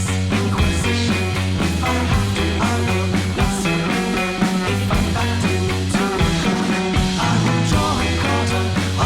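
Background rock music with a driving bass line and drums.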